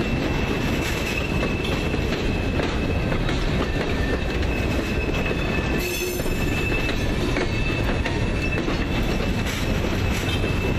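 Freight train cars (CSX gondolas and hoppers) rolling past on a curving track: a steady heavy rumble of wheels on rail with a thin, steady high-pitched squeal of wheel flanges on the curve, and occasional clacks as wheels cross rail joints.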